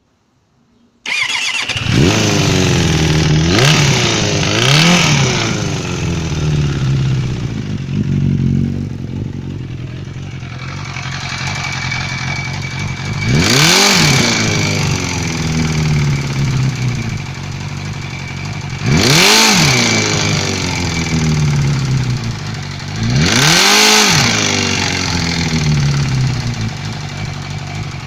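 Suzuki GSF 600 Bandit's air/oil-cooled inline-four engine starting about a second in, then idling and being revved briefly five times, each time rising and falling back to idle. The owner posts it as an engine knock.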